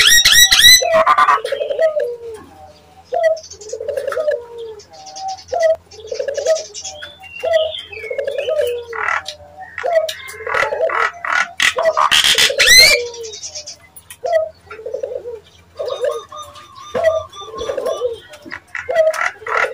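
Nias hill myna calling: a run of short, low, coo-like notes about once a second, with scattered chattering notes between them and one loud, rising whistle about twelve seconds in. This is the kind of call played as a lure to make other hill mynas answer.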